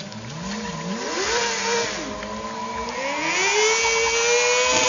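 Sport motorcycle engine revving hard: its pitch climbs about a second in, drops back, then climbs again about three seconds in and holds high near the end.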